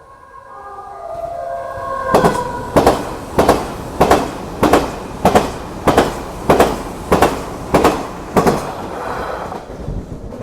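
Odakyu Romancecar VSE (50000 series), an articulated electric express train, passing close by at a level crossing: the sound builds as it arrives, then its wheels clack over the rail joints in an even beat, about eleven strikes at a little under one per second, before fading.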